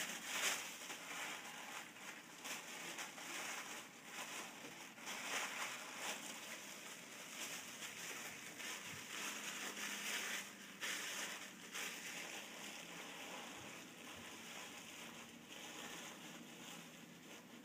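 Sheets of acid-free tissue paper rustling and crinkling as they are handled, folded and tucked into a plastic box, in irregular bursts.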